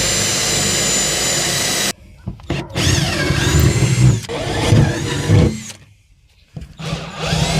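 Electric drill boring mounting holes through the jon boat's aluminum hull, in three runs. It spins up to a steady whine and stops about two seconds in, runs again with its pitch wavering under load, stops, then spins up once more near the end.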